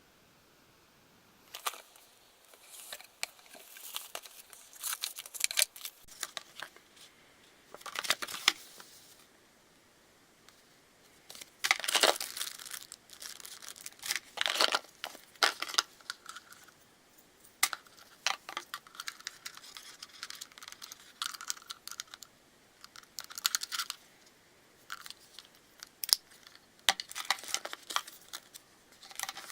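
Close-up handling noise as hardware is worked on by hand: irregular bursts of crinkling and rustling with scattered sharp clicks, separated by short pauses.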